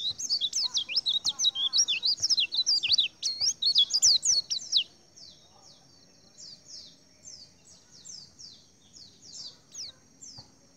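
White-eyes singing: a loud, fast, high twittering warble for about the first five seconds, then fainter, repeated short down-slurred notes, about two a second.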